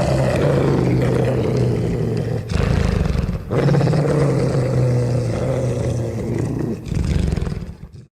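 A wolf's snarling growl sound effect: a loud, rough, sustained growl that dips briefly about three and a half seconds in and cuts off abruptly near the end.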